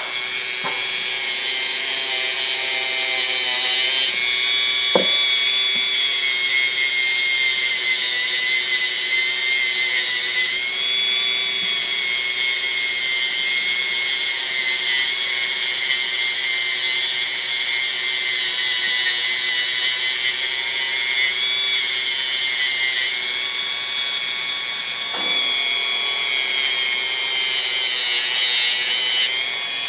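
Small electric power tool running steadily with a high-pitched whine, its pitch wavering slightly, with a brief knock about five seconds in.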